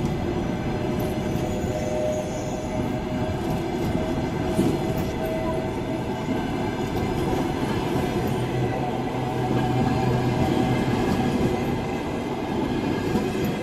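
Passenger coaches of a departing train rolling past, a steady rumble and clatter of steel wheels on the rails as the train picks up speed.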